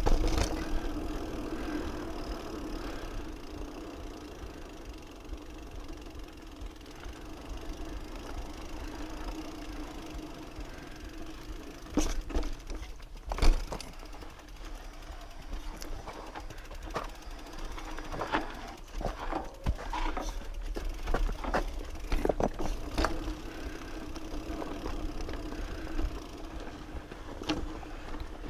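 Specialized Camber Comp 650b mountain bike rolling down a rocky dirt singletrack, with a steady hum from the moving bike and rattles and knocks as it rides over rocks. The loudest knocks come about twelve and thirteen and a half seconds in, and there is a busy run of them in the middle of the stretch.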